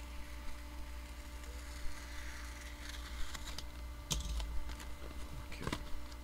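A USPS Priority Mail paper envelope being handled and opened: paper rustling with scattered light clicks and taps, the sharpest about four seconds in and again near the end.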